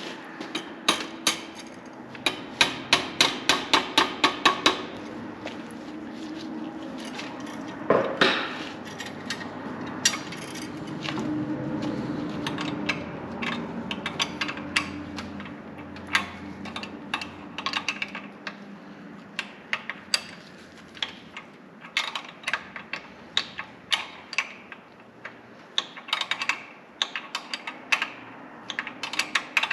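Metal hand tools clicking and knocking against metal fittings during brake-line work on a rear axle. There is a quick run of about a dozen evenly spaced clicks, about five a second, two to five seconds in, a single louder knock around eight seconds in, then scattered clicks.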